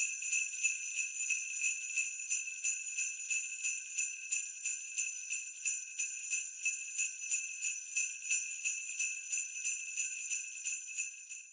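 Jingle bells shaken in an even rhythm, about four shakes a second, ringing bright and high; they stop right at the end.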